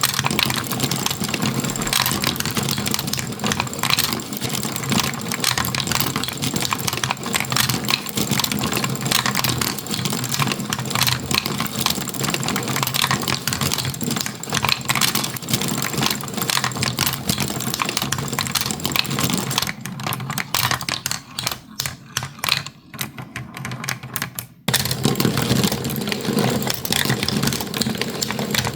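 Marbles rolling and clattering through a marble run: a dense, continuous rattle of clicks. About twenty seconds in it thins to scattered single clicks for a few seconds, then the full rattle comes back abruptly.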